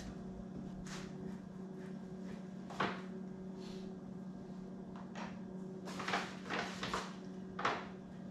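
Scattered knocks and clunks of wooden 1x4 boards being handled and set down on a workbench, a few spread out and then a busier cluster near the end, over a steady low hum.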